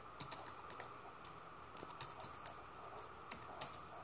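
Computer keyboard being typed on: quick, irregular key clicks, faint.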